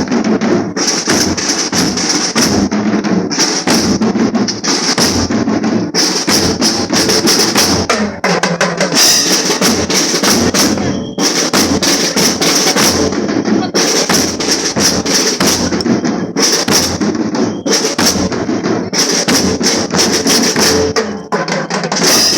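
School marching drum band playing a steady, loud drum cadence, with many rapid strokes throughout.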